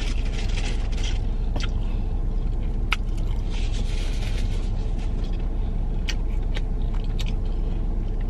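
Steady low rumble of a car running, heard inside the cabin, with a paper napkin rustling and small scattered clicks of eating.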